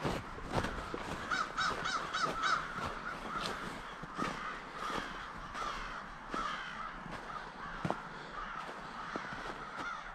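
A flock of American crows cawing, many calls overlapping, with a quick run of caws about a second and a half in.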